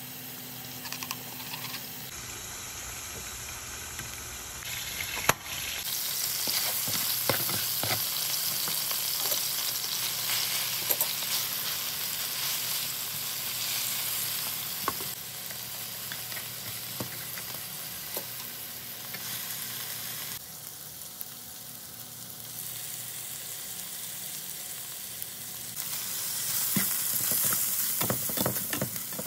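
Hamburger patties and sliced mushrooms frying and sizzling in a non-stick pan, with a spatula now and then scraping and knocking against the pan. The sizzle grows louder about six seconds in and again near the end.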